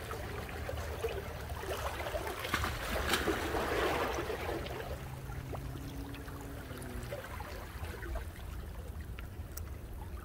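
Small waves lapping and trickling against jetty rocks, swelling briefly about three seconds in, over a steady low rumble.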